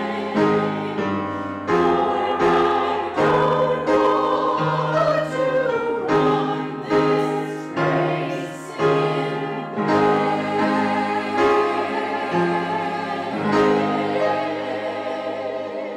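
Choir singing a hymn with instrumental accompaniment, chords changing in a steady rhythm.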